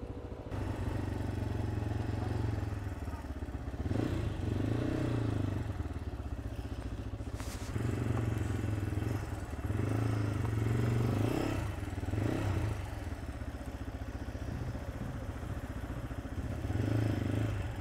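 CF Moto touring motorcycle's engine running at low town speed, heard from the rider's seat. It swells several times as the throttle opens and eases back between, with the pitch rising and falling.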